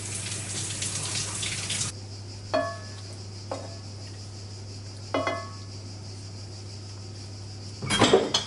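Water boiling in a pot of blanching tomatoes, cutting off suddenly after about two seconds. Then three metallic clinks, each ringing briefly, of a knife knocking against the pot as the blanched tomatoes are lifted out, and a short loud clatter near the end.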